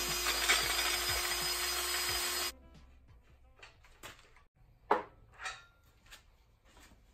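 Power drill boring a 1-inch hole through a Dana 60 steering knuckle with the largest bit of a step-up set: a steady whine over loud grinding that cuts off sharply about two and a half seconds in. A few faint knocks follow.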